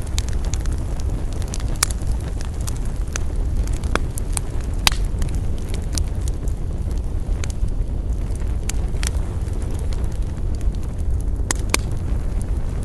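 Wood fire crackling: irregular sharp pops and snaps, a few louder ones around two, four, five and near twelve seconds in, over a steady low rumble.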